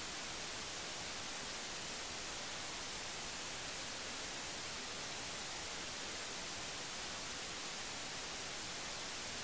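Steady radio static hiss from a software-defined radio receiver tuned to 433.9 MHz, even and unchanging, strongest in the high treble.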